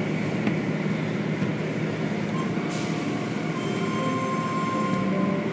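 Automatic car wash heard from inside the car: cloth brushes and foam-soaked strips scrubbing over the body and windshield with water spraying, over the steady hum of the wash machinery.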